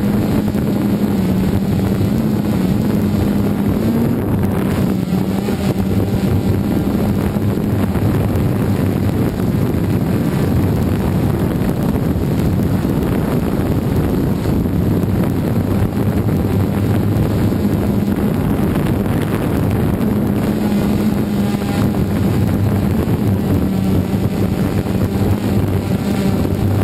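DJI Phantom 2 quadcopter's motors and propellers running steadily as it hovers low, heard as a loud, even hum from the camera mounted on it, with rotor wash buffeting the microphone.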